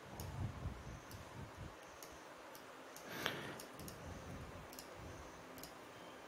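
Faint computer mouse clicks, a handful spread out, over quiet room tone, with one short, slightly louder noise about three seconds in.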